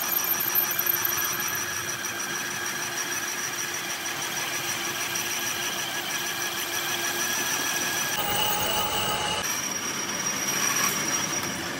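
Lathe cutting tool turning a metal hub plate in a three-jaw chuck, giving a steady high-pitched squeal as it cuts. The squeal changes pitch about eight seconds in and again a second or so later.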